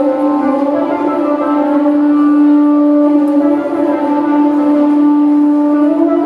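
Slow music made of long held notes, a low tone sustained throughout with higher lines shifting pitch gently above it.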